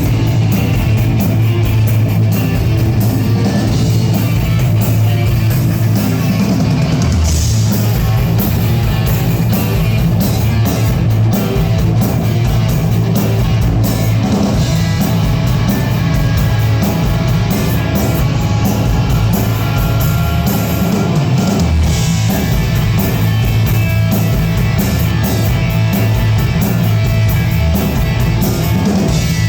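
A band playing heavy rock music with electric guitar and drum kit, going on without a break.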